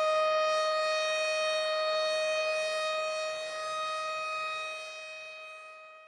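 A siren-like alarm tone holding one steady pitch, fading away over the last couple of seconds.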